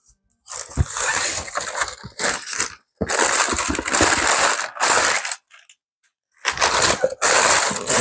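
Printed tissue paper from a shoe box crinkling and rustling as it is handled, in three long stretches with short pauses between them.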